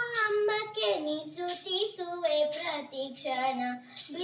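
A young girl singing a Kannada devotional song to the goddess Gauri, carrying the end of a line on into a long, winding melody with no new words.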